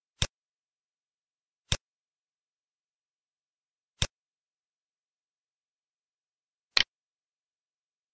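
Computer mouse clicks: three single sharp clicks a second or more apart, then a quick double click near the end, with silence between.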